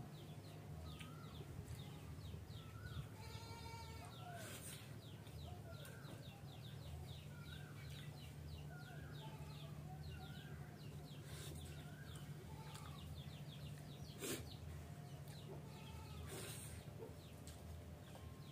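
Birds chirping and calling over and over, over a steady low hum, with a few short knocks.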